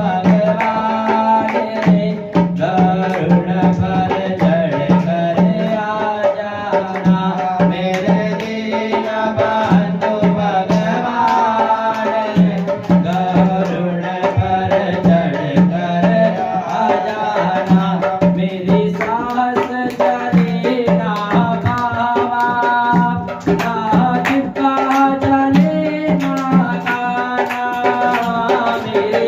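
A man singing a Hindi devotional bhajan over a steady tabla rhythm.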